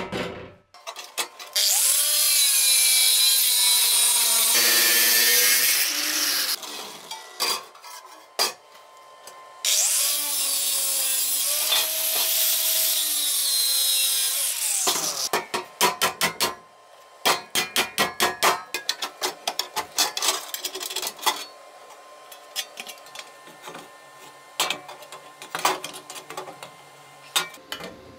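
Angle grinder with a thin cut-off disc cutting into a shovel's steel socket: two long cutting passes, the motor's pitch rising as it spins up and falling as it winds down after each. Then, from about halfway through, a run of sharp, irregular metallic clicks and knocks.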